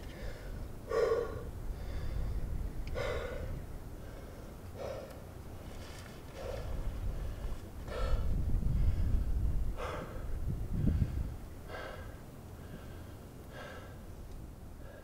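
A rock climber's hard, voiced exhalations under strain, about eight in a row, roughly one every two seconds, while leading a strenuous crack climb. A low rumble swells for a few seconds in the middle.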